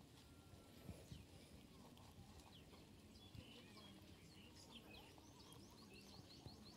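Near silence: faint open-air ambience with small birds chirping, many short chirps coming thicker through the middle and latter part.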